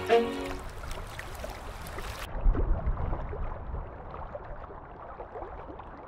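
The last notes of an electronic music track end about half a second in. After that comes a muffled, low underwater rumble with faint ticks and crackles, as picked up through an underwater camera housing. The sound becomes duller about two seconds in.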